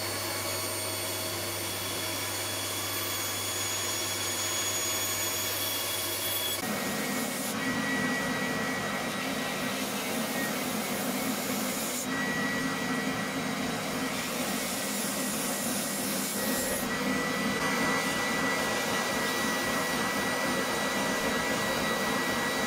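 A bandsaw running steadily as it cuts the wooden guitar headstock, giving way about six seconds in to a benchtop belt sander grinding the headstock's edges, a steady rough noise with a high whine.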